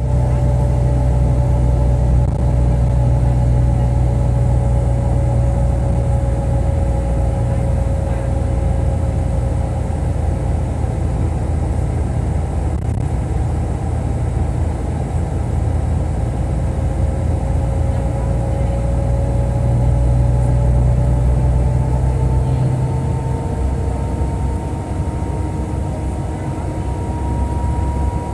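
Steady low rumble of a moving vehicle, with a faint tone that drifts slowly up and down in pitch.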